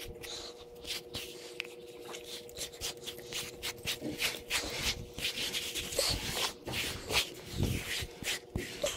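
Irregular rubbing and scraping strokes against a horse's coat, right at the microphone.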